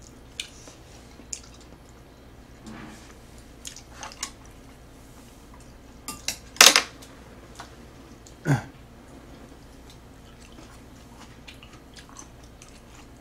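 Chopsticks and spoons clicking now and then against bowls and a metal tray during a meal, with quiet eating sounds. There is one louder sharp noise about halfway through and a short falling tone soon after.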